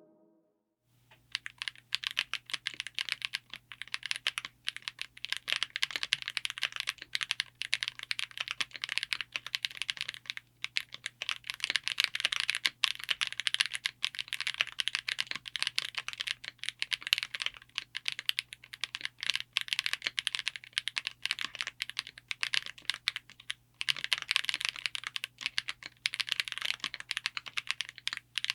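Typing test on a mechanical keyboard with Akko V5 Creamy Blue Pro tactile switches in a 60% board with an aluminium case and FR4 plate. It starts about a second in as a fast, continuous stream of keystrokes, with two brief pauses.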